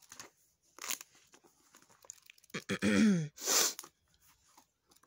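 Pages of a hardcover book being turned and handled: a few short, crisp paper rustles, the loudest a little past the middle.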